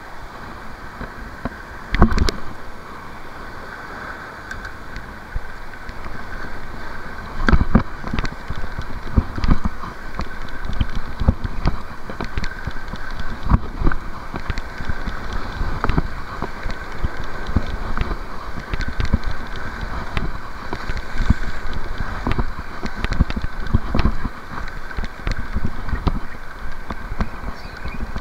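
Spinning reel being cranked to retrieve line: a steady whir with irregular clicks and knocks from handling, and a loud knock about two seconds in, over wind on the microphone.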